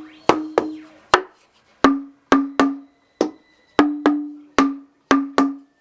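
A wooden tinsmith's mallet knocks on a row of roughly 200-year-old oak beams laid on blocks as a makeshift xylophone: about a dozen strikes, most ringing with a clear, low tone, the pitch dropping slightly after the first few. Two of the strikes are short and dull, with little ring.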